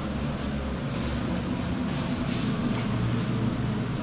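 Steady low rumble and running noise of a moving vehicle, even throughout.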